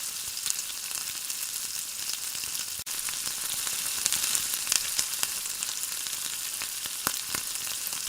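Prawns frying in hot oil in a pan: a steady sizzling hiss dotted with sharp crackles and pops, briefly cut off about three seconds in.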